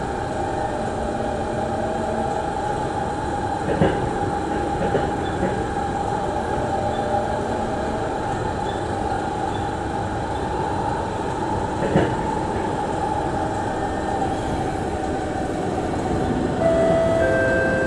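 Singapore MRT train heard from inside the carriage while moving, a steady rolling rumble and hum with two sharp knocks from the wheels on the track. Near the end a whine of steady tones comes in and the noise swells slightly as the train brakes towards a station.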